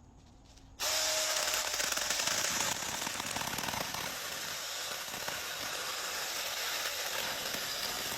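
Battery-powered mini chainsaw starting suddenly about a second in and running steadily as its chain cuts through a thick piece of wood.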